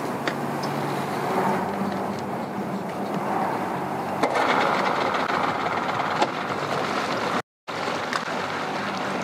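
Small boat's outboard motor running at idle. About four seconds in, a louder rushing sound joins it as the boat gets under way.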